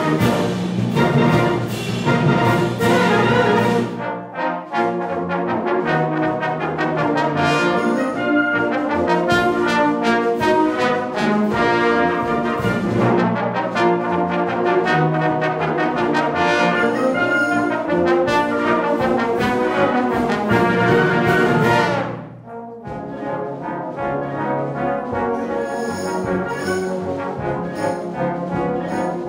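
Concert wind band playing a trombone feature, brass to the fore with the trombones prominent. A loud full-band passage breaks off about four seconds in, the music builds again, and about twenty-two seconds in the band drops to a softer passage.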